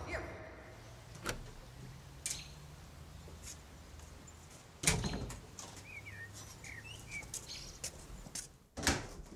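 A few knocks and clicks from a bicycle being pushed and parked, the loudest a single thump about five seconds in and another near the end, with a few short bird chirps between.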